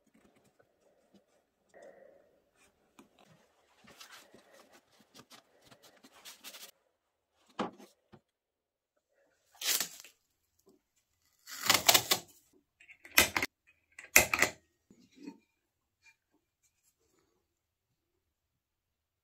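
Faint scraping and tapping as a glue-coated thin spline is worked into the saw kerf of a mitred corner. About ten seconds in, masking tape is pulled off its roll in four loud rasping strips over about five seconds.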